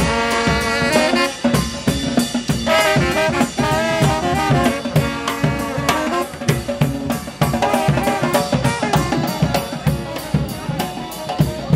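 Live marching brass band playing: sousaphone and horns carrying a melody over snare and bass drums keeping a steady, driving beat.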